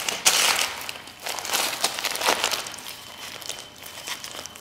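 Aluminium foil crinkling in several bursts as it is squeezed and folded around the roots and soil of a turf grass sample. It dies down after about three seconds.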